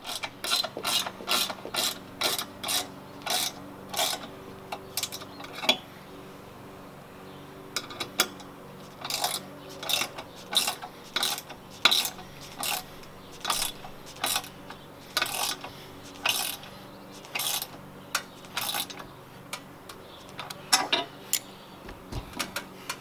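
Ratchet wrench tightening a bolt on a steel awning bracket: runs of sharp ratchet clicks, about two a second, broken by a few short pauses.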